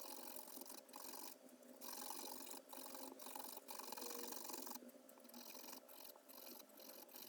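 Faint, irregular rubbing strokes of hand abrasive work, like sanding or filing, each stroke a short hiss with brief pauses between.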